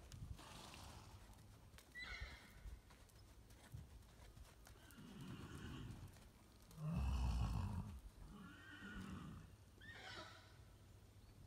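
A horse neighing in several separate calls, the loudest about seven seconds in.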